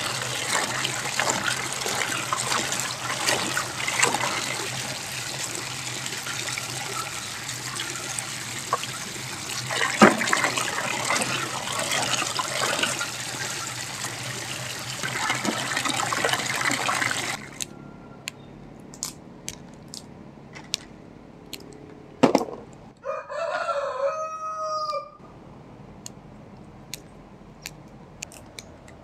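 Water pouring steadily into a basin, with hands splashing as bunches of turkey berries are rinsed under it; it stops suddenly about two-thirds of the way in. Then sparse small clicks of berries being picked off their stems, a single thump, and a rooster crowing once for about two seconds.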